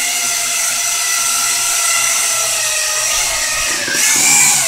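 Small quadcopter's four electric motors and propellers whining steadily as it hovers and flies, with the pitch dipping and then rising near the end as the throttle changes.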